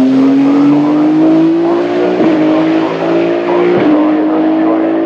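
Race car engine accelerating hard, its note climbing steadily, with two quick upshifts, about two seconds and almost four seconds in.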